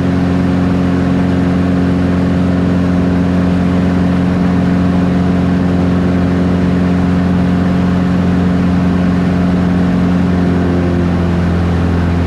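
Van's RV-8 single-engine light aircraft in flight, heard from inside the cockpit: a steady piston engine and propeller drone.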